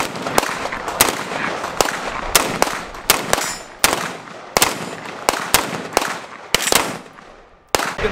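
A string of about fifteen rifle shots from an AR-15-style carbine fired semi-automatically, unevenly spaced at roughly half a second to a second apart, each with a short echo.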